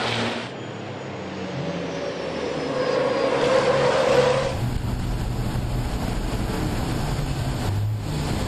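Turbo-diesel race truck engines at racing speed, cut between several shots: an engine note climbing as a truck accelerates, then a deeper, steadier engine drone from about halfway through.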